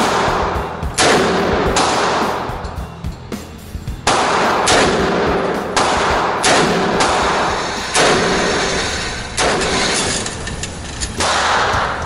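A 9mm handgun fired about ten times at a slow, uneven pace, each shot ringing out with a long echo off the walls of the indoor range, over background music.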